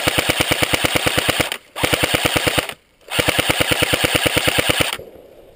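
Airsoft gun firing full-auto bursts of rapid, evenly spaced shots, loud and close. The first burst stops about one and a half seconds in, a short second burst follows, and a longer third burst ends about five seconds in.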